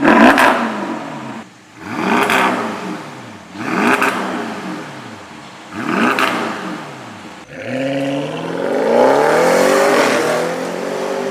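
Audi S8 engine through a titanium valved cat-back exhaust, free-revving while parked: four short throttle blips about two seconds apart, each falling back to idle, then a longer rev that climbs and holds for a few seconds.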